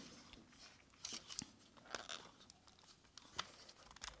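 Faint, scattered clicks and scrapes of a G1 Soundwave reissue transforming toy handled in the hands, its hinged parts pushed and turned partway through a transformation.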